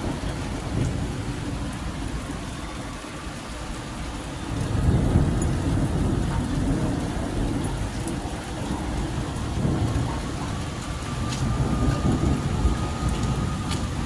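Steady rain falling on a wet paved street, with low rumbles of thunder swelling about four or five seconds in and again near the end.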